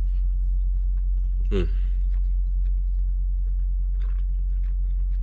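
A person chewing food, with small clicks of a fork on a plate, over a steady low hum. A short voiced "mm" comes about one and a half seconds in.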